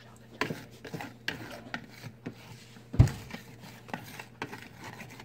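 Thick cookie dough being worked by hand and spoon in a mixing bowl: irregular soft knocks and rubbing, with one louder thump about three seconds in.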